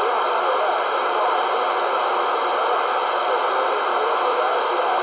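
CB radio receiver hissing steady static, with no station coming through.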